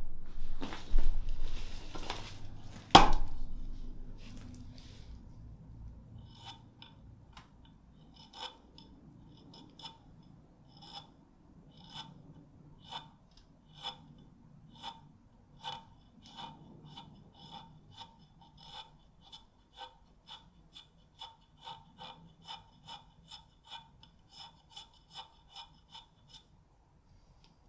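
A loud knock about three seconds in, then a long run of short, crisp scraping strokes as a wooden watercolour pencil is shaved to a point against the edge of a hand-held carving axe, about one stroke a second at first, quickening to about two a second.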